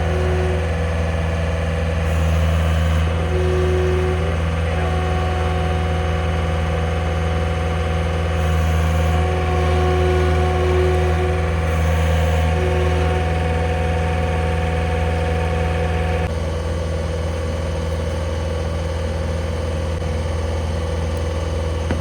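An engine running steadily at an even idle, with a low hum, dropping a little in level about sixteen seconds in.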